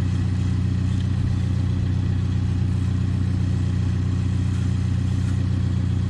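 A steady, low-pitched engine drone, unchanging throughout.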